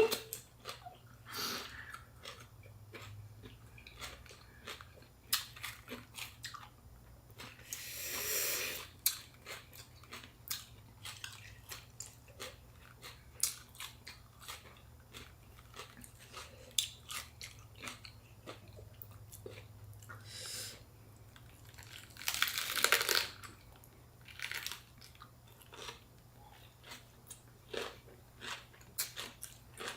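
Close-miked chewing and crunching of fresh rice-paper spring rolls filled with raw lettuce, cucumber, bean sprouts and shrimp, made up of many small wet clicks and crunches. Two longer, louder noisy sounds stand out, about a third of the way in and again about three-quarters of the way through.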